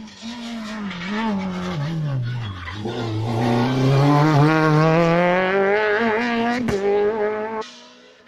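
Rally car engine: revs fall and waver, then climb steadily under hard acceleration and grow loud. A sharp crack comes near the end, and the engine sound then cuts off suddenly.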